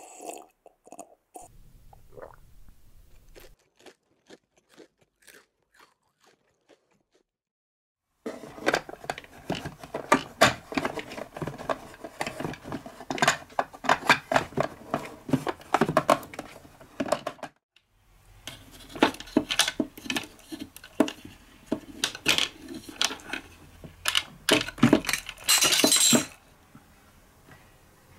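Small plastic toy-kitchen pieces being handled: faint scattered clicks at first, then a long run of dense clicks, taps and rattles, a brief pause, and another run.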